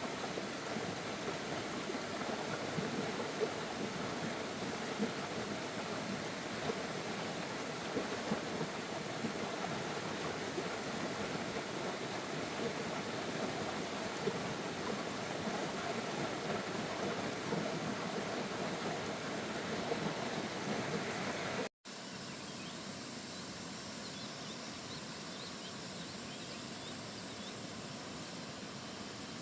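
Steady rushing noise with no clear pitch. It cuts off suddenly about two-thirds of the way through and gives way to a quieter background with faint, short, high chirps.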